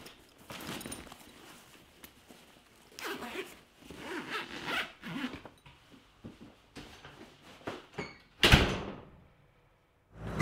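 Zipper of a fabric tool bag being pulled shut in a series of short strokes, then a door shutting with a sudden, loud thud near the end.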